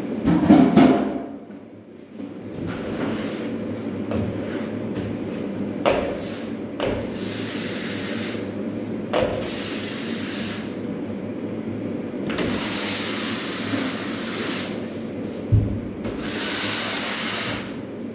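Long scraping strokes of a hand tool drawn over a plasterboard wall, each about two seconds, over a steady low hum. A loud knock comes just after the start and a short thump near the end.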